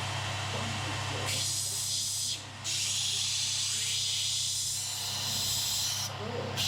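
Grinding on steel with a power grinder: a steady hiss starts about a second in and breaks off briefly twice, as the grinder lifts off the work, over the hum of the motor.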